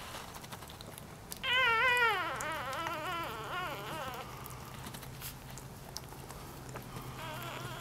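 One-day-old Dachshund–Jack Russell cross puppy crying: a high, wavering, mewing squeal that starts about a second and a half in, lasts about three seconds, and is loudest at first before trailing off.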